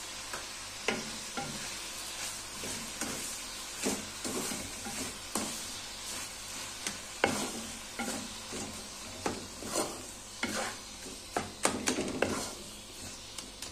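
Wooden spatula stirring grated bottle gourd and sugar in an aluminium kadhai, scraping and knocking against the pan at irregular intervals, over a steady sizzle of frying in ghee.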